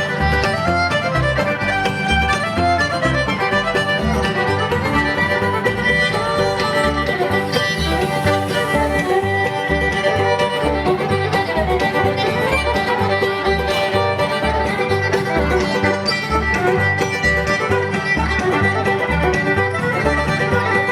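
Live bluegrass band playing an instrumental passage, fiddle to the fore over banjo and guitar, with a steady bass beat.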